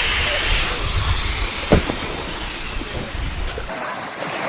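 Air hissing out of a slashed inflatable boat tube, a steady hiss that slowly weakens, with a short knock a little under two seconds in.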